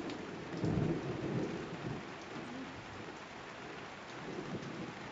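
Typhoon rain falling steadily, with a low rumble of thunder in the first couple of seconds that fades away.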